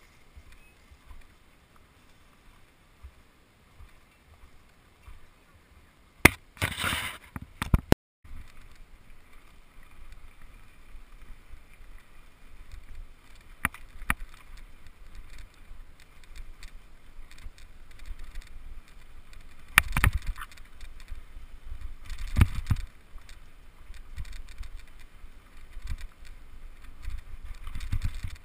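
Bicycle riding over a dirt and gravel trail, heard from a camera mounted on the bike or rider: a steady low rumble from the tyres and wind on the microphone, with scattered rattles and knocks over bumps. A loud gust of noise comes about six seconds in and cuts off suddenly, and two heavier thumps come in the second half.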